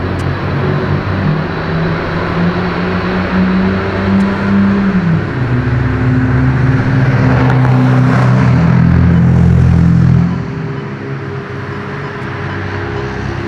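Boeing 747-400F's four jet engines running as the freighter turns on the runway, a loud steady rumble with held low hums. The hums shift in pitch about five seconds in, and the sound drops noticeably about ten seconds in.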